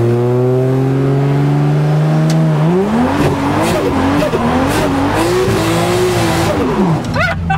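Drift car's engine revving up while held on the trans brake of its ZF 8HP automatic, then jumping higher as the brake lets go about two and a half seconds in, with the rear tyres spinning and squealing and the revs wavering high for several seconds before dropping away near the end. Heard from inside the cabin.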